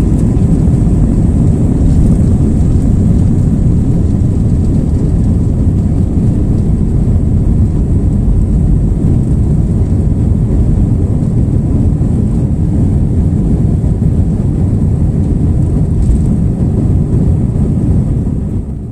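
Jet airliner cabin noise during takeoff: a loud, steady low rumble of the engines and rushing air heard from inside the cabin, fading out near the end.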